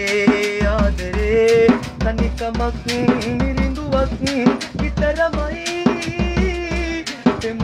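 A man singing a Sinhala song while beating a single-headed, metal-shelled hand drum with his open palm, keeping a steady rhythm of deep thumps and sharper slaps under the melody.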